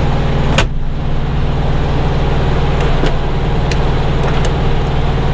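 Freightliner Coronado's diesel engine idling steadily while the freshly repaired power window is run down, with a few sharp clicks from the door.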